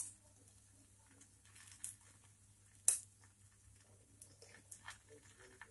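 Quiet spooning of melted ghee: a few light clicks of a steel spoon against a steel bowl and the bread, the sharpest about three seconds in.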